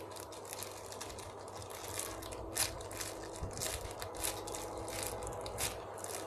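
Rustling and crinkling as a squishy toy is handled, with a few sharper crackles.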